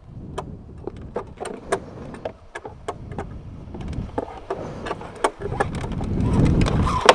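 Motorcycle on the move: low engine rumble mixed with wind and road noise and a few light knocks, growing louder from about five and a half seconds in as it picks up speed.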